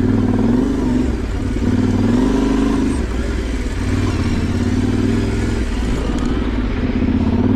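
Yamaha Ténéré 700's parallel-twin engine running under throttle off-road, its pitch rising and falling in several swells as the rider works the throttle.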